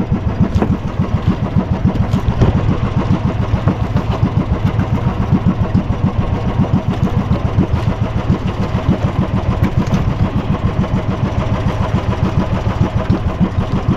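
A bangka outrigger boat's engine running steadily, with an even, rapid chugging beat.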